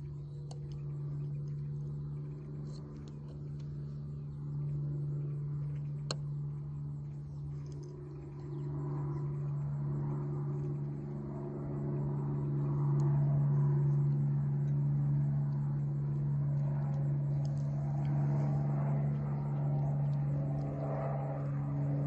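Cessna 310Q's twin piston engines and propellers droning on approach, a steady low hum that grows louder as the aircraft comes nearer, then holds.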